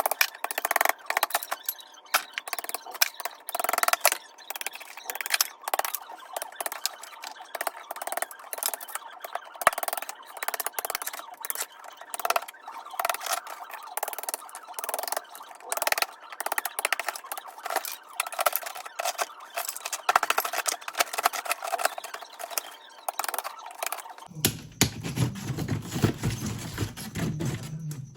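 Tool chipping and scraping at thick ice built up in a fridge freezer: rapid, irregular knocks, scrapes and squeaks. Near the end a deeper, denser noise takes over.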